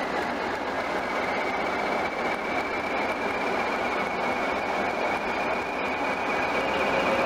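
English Electric diesel locomotive running with a steady engine noise and a thin high whine that rises slightly in pitch. The sound grows louder towards the end.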